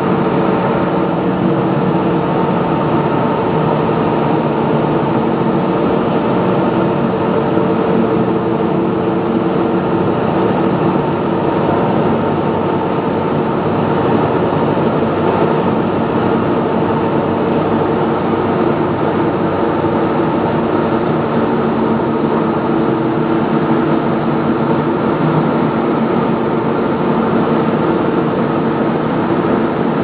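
Aluminium shaft melting furnace and rod casting plant running: a loud, steady machinery drone with several steady hum tones over a noisy rush, unchanging throughout.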